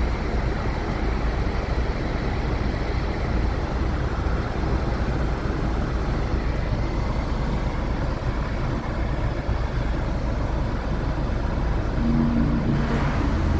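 Steady rush of a Ford Fusion's climate-control blower pushing air through the vents, over the low drone of the idling car. A brief low hum joins near the end.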